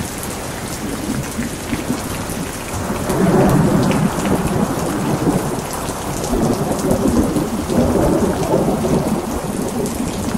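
Steady heavy rain with rolling thunder. The rumble swells up about three seconds in and again from about six seconds.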